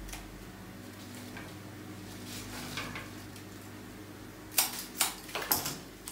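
Handling noises from flower arranging: a soft rustle, then a quick run of about four sharp clicks and snaps near the end, over a steady low hum.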